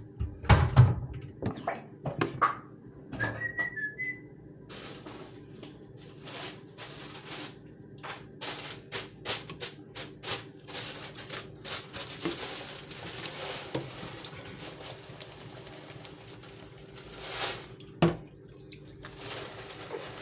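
Dishwashing clatter at a stainless-steel sink: knocks of a plastic bottle and cup as dish soap is poured and mixed, with a short whistle-like squeak a few seconds in. From about five seconds in a steady hiss of water runs on under scattered clatter of dishes.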